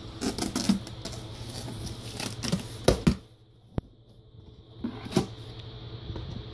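A cardboard monitor box being opened: a small knife slitting the packing tape and the flaps pulled apart, rustling and scraping, with a sharp knock of cardboard about three seconds in. After a short pause, more rustling and another knock as the flaps are pushed back.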